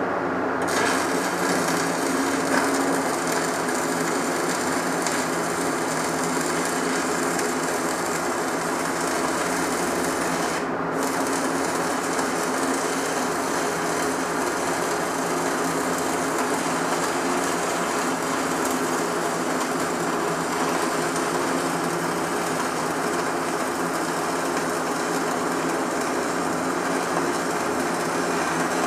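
Stick welding arc from a 3/32 E6013 rod running a bead: a steady, even crackling sizzle, with the hiss briefly dropping out about eleven seconds in.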